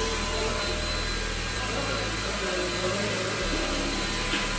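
Handheld hair dryer running steadily, blowing on hair.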